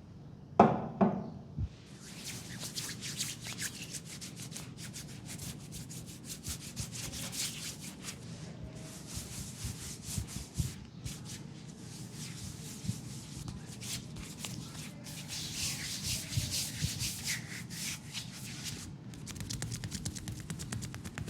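Hands rubbing briskly over the skin of a leg in a massage: a fast, continuous run of dry friction strokes. A couple of thumps come about half a second in, before the rubbing settles in.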